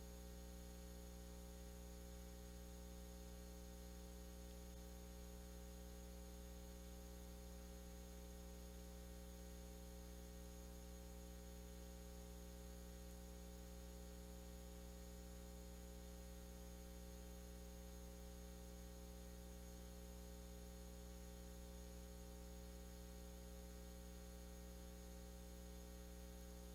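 Faint, steady electrical hum with a low hiss that holds unchanged throughout: near silence, only the audio line's background noise.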